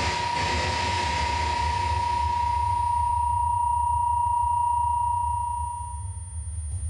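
A steady electronic sine-like tone held on one pitch over a low rumble, with a hiss that fades away about three seconds in; the tone dies out near the end.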